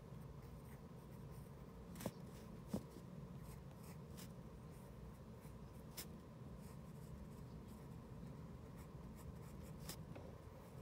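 Pencil lead scratching faintly on paper as lines are drawn, with a couple of sharp clicks about two seconds in.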